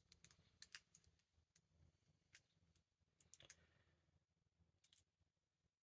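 Faint, irregular metal clicks and taps as a disc-detainer padlock is handled and its end cap is worked off. Some of the clicks come in quick pairs.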